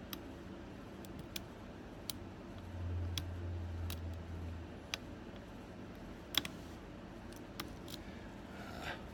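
Scattered small metallic clicks, about eight of them at irregular spacing, from a hook pick and tension wrench working the pins of a pin-tumbler challenge lock. A low hum runs for about two seconds around the middle.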